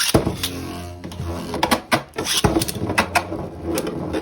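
Beyblade spinning tops whirring in a plastic stadium, with a string of sharp clicks as they strike each other and the walls.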